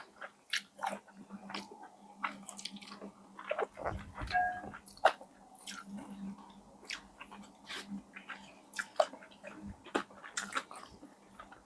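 People eating fried chicken close to the microphone: irregular crunchy bites, chewing and wet mouth clicks.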